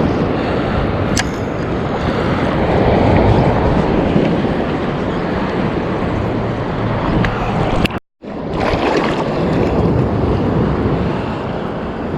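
Rough surf breaking and washing up the beach, with strong wind buffeting the microphone. The sound cuts out completely for a moment about eight seconds in.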